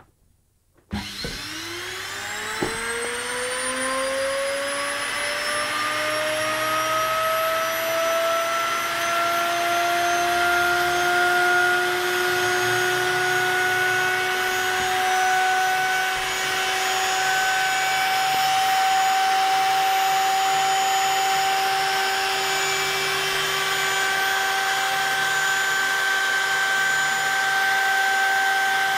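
A 240-volt, 380-watt washing-machine universal motor switched straight onto the mains about a second in. Its whine rises quickly in pitch as it spins up, then levels off after several seconds into a steady high whine with a hiss as it runs unloaded at full speed.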